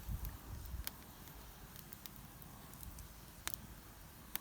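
Open wood fire crackling, with a few sharp pops spread through, over a faint low rumble near the start.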